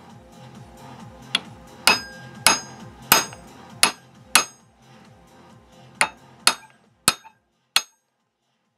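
Hammer striking a socket held against a new tapered pivot bearing, driving it into the BMW K1200LT final drive housing: about ten sharp metallic taps with a short ring, six in quick succession, then a pause, then four more. Faint background music runs under the first taps.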